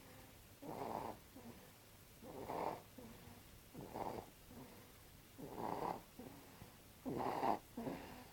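Snoring of a one-month-old: short, regular snores of about half a second each, coming roughly every one and a half seconds, with two close together near the end.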